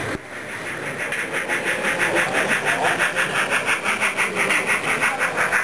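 H0 model steam locomotive passing with a train of freight wagons, making a steady rhythmic beat about four to five times a second.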